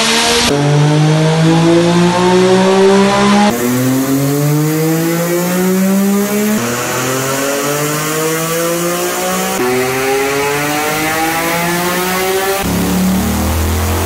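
Motorcycle engines at full throttle on a rolling-road dyno, several short runs edited back to back. Each is a steadily rising engine note that starts again lower at each cut, among them a Triumph Daytona 675 three-cylinder.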